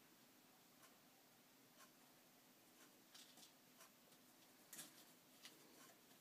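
Near silence broken by faint, scattered crinkles and clicks of clear plastic as a black puppy noses and mouths it on the carpet. They come a little more often in the second half.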